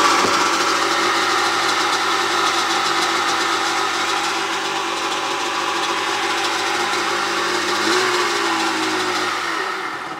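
1994 Sea-Doo SP 580 jet ski's two-stroke twin engine running at a steady idle. About eight seconds in, the pitch wavers and then falls as the engine is shut off and winds down.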